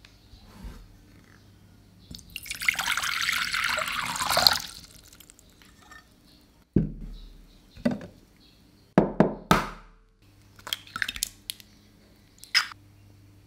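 Water poured from a measuring cup into a glass bowl for a couple of seconds. Then an egg is knocked and cracked open over the bowl: several sharp taps and shell cracks.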